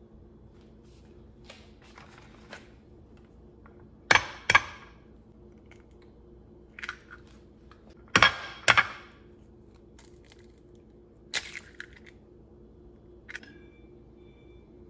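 Two eggs being cracked, each with a pair of sharp knocks about half a second apart. Lighter clicks and clinks of shell come in between.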